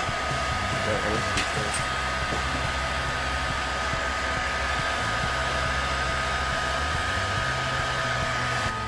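Hot air gun blowing steadily: a rush of air with a steady whine.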